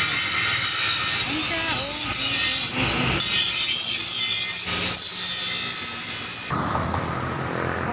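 Motor-driven grinding wheel grinding the steel blade of a bolo knife, a steady harsh grind with sparks flying. It cuts off abruptly about six and a half seconds in.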